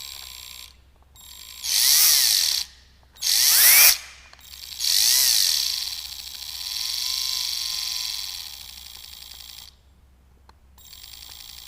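Household electric drill run in short trigger bursts: two quick loud bursts, the second spinning up in pitch, then a longer run of several seconds that eases off and slows. After a brief stop it runs again, quieter and steady.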